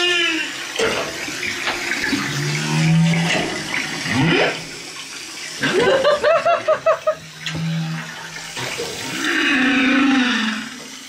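Humpback whale song picked up by a hydrophone: low moans held at a steady pitch, rising whoops, and a quick run of pulsed calls about six seconds in.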